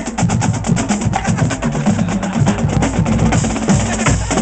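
Marching band drumline playing a cadence: fast, even snare drum strokes over bass drums stepping between different pitches, with cymbals.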